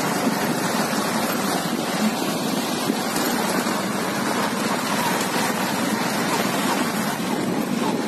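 Motorcycle on the move over a rough gravel track: steady engine and road noise with wind rushing over the microphone.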